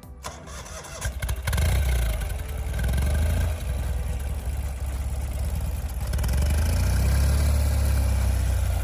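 Ural Gear-Up sidecar motorcycle's flat-twin engine pulling hard under load after a few faint clicks, getting louder about a second and a half in and again near the end, as the rider tries to pull away over soft ground. The attempt does not succeed.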